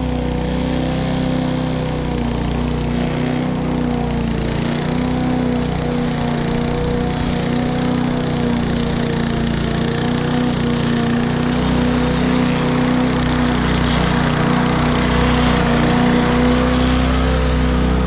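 Petrol lawn mower engine running steadily. It cuts in abruptly at the start and holds an even, unchanging note.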